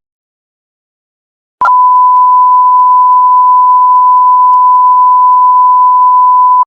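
A single steady electronic tone, high-pitched and pure, that comes in with a click about a second and a half in. It holds loud and unchanging for about five seconds, then cuts off abruptly.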